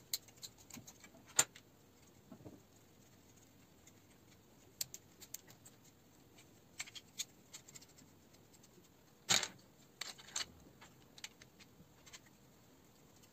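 3D-printed plastic tripod legs and joint pieces clicking and clacking as they are handled, folded and snapped together. Scattered light clicks, with a louder click a little over a second in and a short clatter just past nine seconds.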